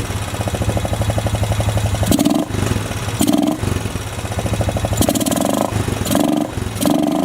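Freshly rebuilt 2007 Honda ATV engine, with new piston and cylinder, running steadily. Its note changes briefly several times. The owners suspect the carburetor is flooding.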